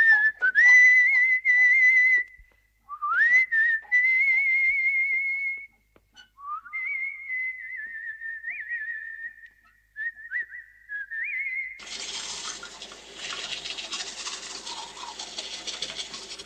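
A person whistling a tune in several phrases with short breaks, the notes wavering and gliding up at the start of each phrase. About twelve seconds in the whistling stops and a quieter steady hiss takes over.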